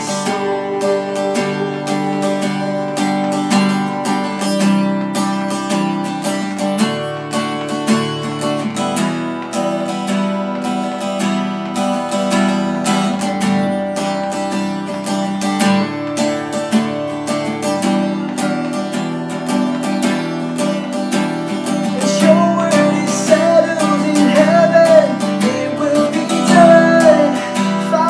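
Cutaway acoustic guitar strummed steadily through an instrumental passage of a worship song, with a man's singing voice coming in near the end.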